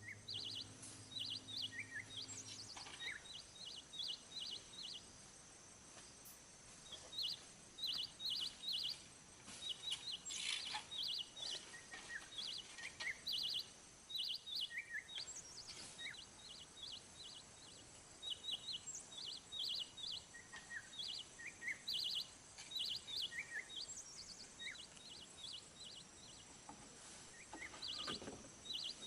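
Small birds chirping in quick repeated clusters of high notes, with a few lower single calls and a faint steady high-pitched insect drone. Occasional short knocks.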